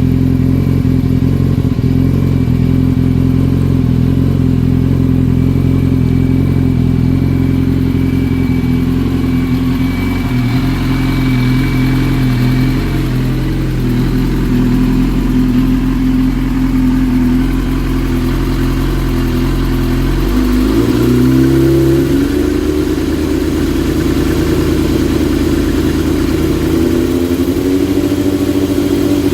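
2005 Yamaha R6's inline-four idling through an aftermarket Voodoo exhaust, with an unsteady, surging idle that the owner calls a misfire. About two-thirds of the way through, the idle rises briefly and then settles again.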